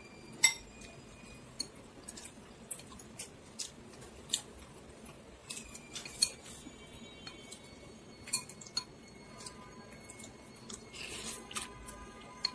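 White ceramic soup spoon and chopsticks clinking against a porcelain noodle bowl while stirring and lifting ramen: scattered sharp clicks, some with a short ring, the loudest about half a second in.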